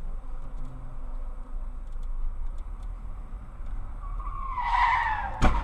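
A car's tyres screech for about a second and a half, the pitch sinking slightly, and end in a sharp crash of impact near the end. Under it runs the low steady hum of the recording car.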